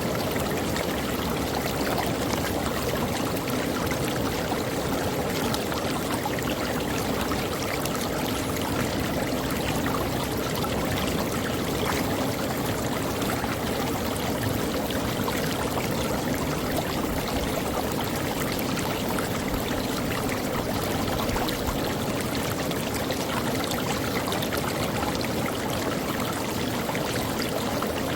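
Creek water running steadily over rocks, a continuous rushing and babbling.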